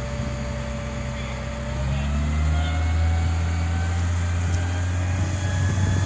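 Mobile crane's engine running under load as it hoists a rooftop air-conditioner unit; its note rises and grows louder about two seconds in, then holds steady.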